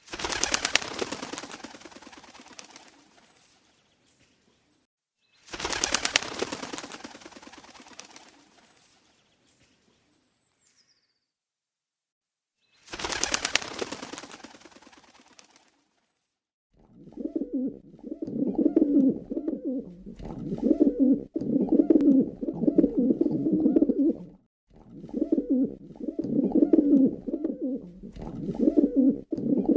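Three sudden bursts of many birds' wings flapping, each fading away over a few seconds, like a flock taking off. Then, from a little past halfway, pigeons cooing in repeated low, throaty phrases.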